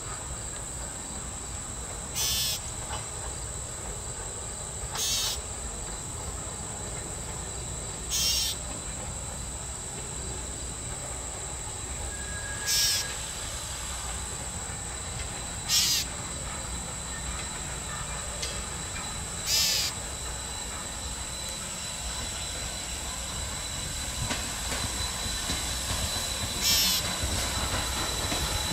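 Insects drone steadily at a high pitch, with a short rasping insect call about every three seconds. Under them is the low rumble of Strasburg Rail Road's steam locomotive No. 475, a 4-8-0, approaching and growing louder near the end.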